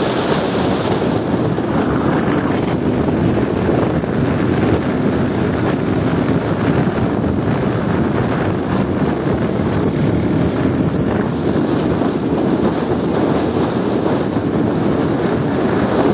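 Steady wind rushing over the microphone of a moving 70cc motorcycle, with the bike's engine running underneath.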